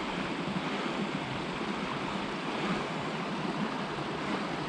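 Small creek water running, a steady even rush of flowing water.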